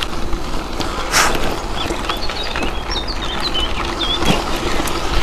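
Riding noise of a bicycle on a path: a steady low rush of wind and rolling, with a brief swish about a second in. A small bird chirps several short high notes in the middle.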